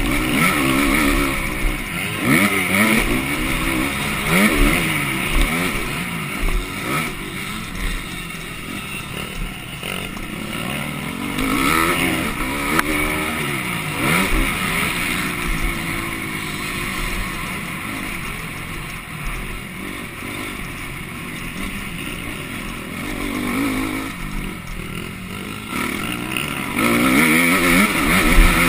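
Motocross bike engine revving hard, its pitch climbing and dropping over and over as the rider accelerates, shifts and backs off, heard from on the bike itself.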